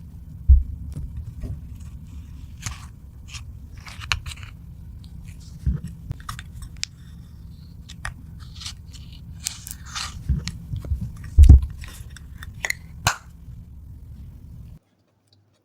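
Slime being mixed and squished: wet, sticky clicks and crackles over a steady low hum, with a few heavy low thumps, the loudest about eleven seconds in. The sound cuts off suddenly near the end.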